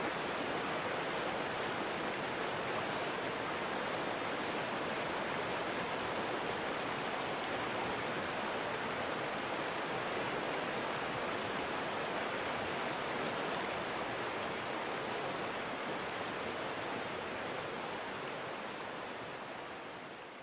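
Waterfall: a steady rush of falling water that fades out near the end.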